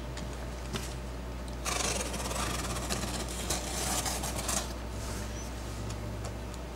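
Utility knife slicing through the packing tape on a cardboard box: a scratchy, rasping cut lasting about three seconds, starting about two seconds in, with a few light clicks around it.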